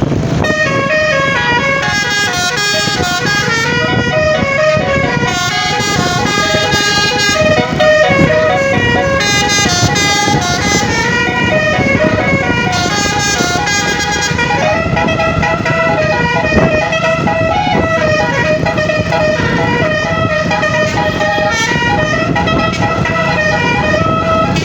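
Multi-trumpet telolet bus horn playing a melody, its notes stepping up and down in quick succession, over a steady low rumble.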